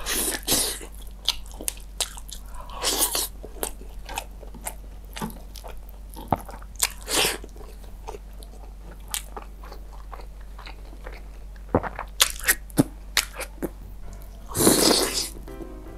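Close-miked eating of breaded fried chicken in cheese sauce: crunching bites and chewing, with several louder bites at intervals and a longer loud one near the end.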